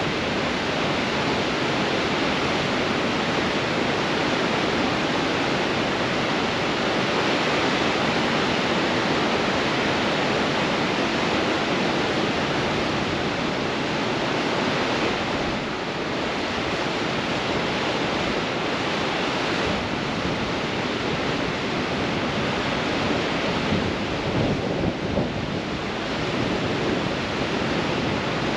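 Heavy ocean surf breaking on rocks in strong wind: a dense, steady rush of water and wind, with a few brief surges in level a few seconds before the end.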